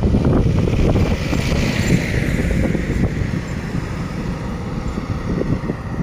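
Wind buffeting the microphone: a loud, uneven low rumble that gusts and eases, with a brief hiss swelling and fading about two seconds in.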